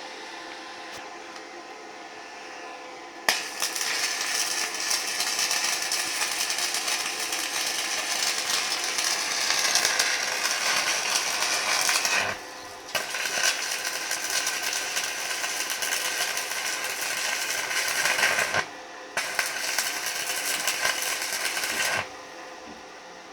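Stick (MMA) arc welding with a 3.2 mm electrode on an ANDELI ZX7-250 inverter welder. About three seconds in the arc strikes and crackles and sizzles steadily, breaks off briefly twice and then stops near the end. Before the strike there is only a steady hum.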